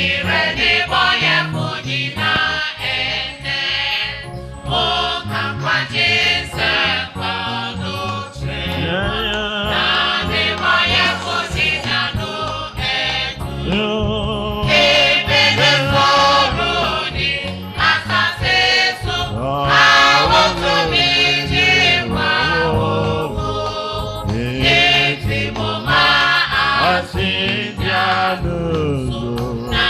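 Choir singing gospel music with instrumental backing.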